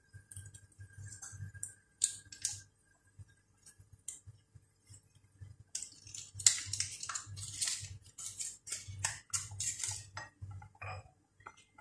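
Clinking and clattering of dishes and kitchen utensils, a few scattered clinks at first, then busier, rapid clattering from about halfway through.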